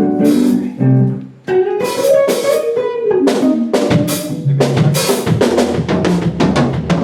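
Guitar and drum kit playing together in a loose sound-check run: guitar notes throughout, with the drums coming in about a second and a half in and hitting steadily after that.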